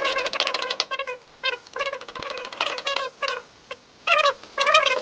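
An animal calling: quick runs of short, high-pitched calls in clusters, with short pauses between them.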